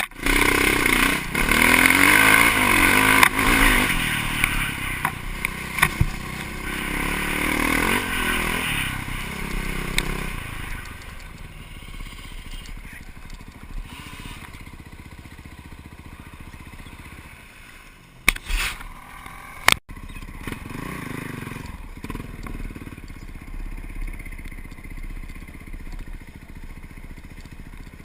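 Off-road vehicle engine revving up and down under load, then dropping after about ten seconds to quieter, steady running. Two sharp knocks come about a second and a half apart, past the middle.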